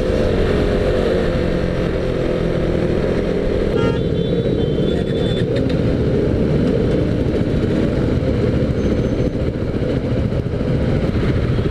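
KTM motorcycle engine running under way at low road speed, with other motorcycles around it and road noise. A brief high-pitched tone sounds about four seconds in.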